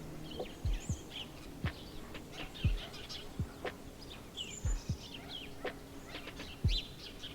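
Quail chirping and twittering in short high calls, with a series of soft low thumps every second or so that stand out as the loudest sounds.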